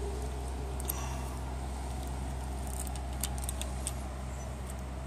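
Faint light metallic clinks of a steel timing chain being handled and draped over its sprockets, a few scattered ticks over a steady low hum.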